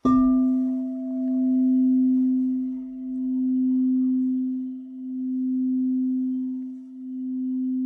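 Tibetan singing bowl struck once with a mallet and left to ring: a low steady tone with a fainter higher overtone, swelling and fading in a slow wobble about every two seconds.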